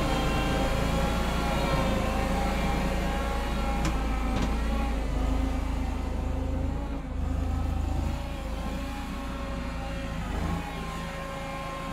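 Homemade compact wheel loader's engine running steadily with a constant whine over a low rumble, growing quieter as the machine drives away. Two short knocks about four seconds in.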